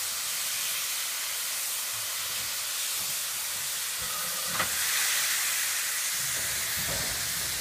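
Hawthorn Leslie industrial steam locomotive hissing steam steadily as it moves off with a coal train. A sharp knock comes about halfway through, and low, uneven beats begin near the end.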